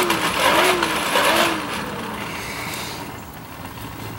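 Forge blower whining, its pitch rising and falling about every 0.6 s with a rush of air, then stopping about a second and a half in.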